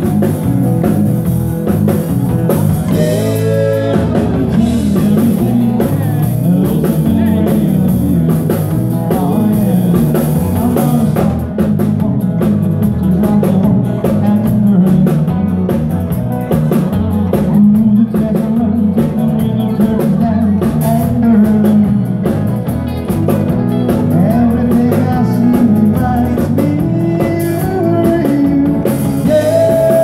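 Live band playing rock and roll, with drum kit, guitar and singing.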